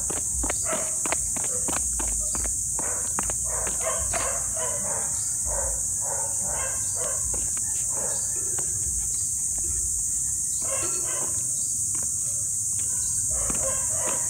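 A steady, high-pitched chorus of insects, with irregular footsteps and paw scuffs and clicks from walking on concrete.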